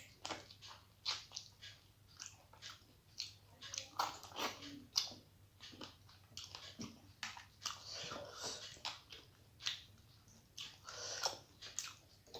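Close-up eating sounds: a person chewing and biting food, with irregular wet smacks and crunches several times a second.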